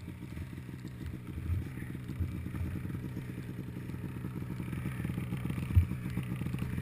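Polaris Pro RMK 800 snowmobile's two-stroke twin idling steadily, with a few dull thumps and one sharp knock about six seconds in.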